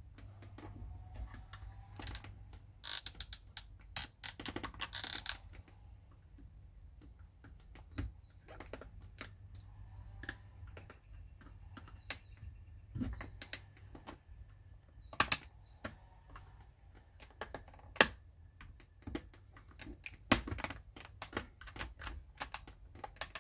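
Irregular plastic clicks, snaps and taps as a Ford F350 Super Duty fuse box's clips are released and its layers prised apart, with two short stretches of scraping a few seconds in.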